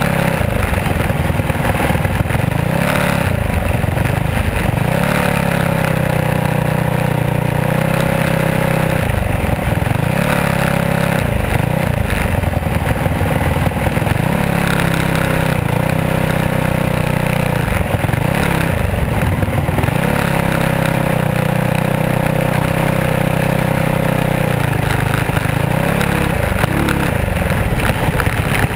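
Small race car's engine heard onboard, running hard in a heat race, its revs dropping and climbing back up every two to three seconds as the driver lifts off and gets back on the throttle lap after lap.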